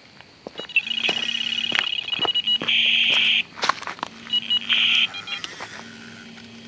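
Electronic carp bite alarm on a rod pod sounding off: a fast string of high beeps about a second in, a steady high tone near three seconds, then a few more beeps and a shorter tone around five seconds. It signals a few quick pulls and then a steady run, a channel catfish taking line. Footsteps crunch on shoreline stones, with sharp clicks, as the angler reaches the rods.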